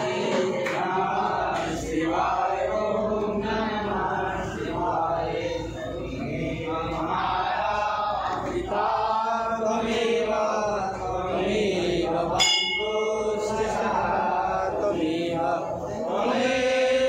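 Voices chanting without a break, with a brief clang about twelve seconds in.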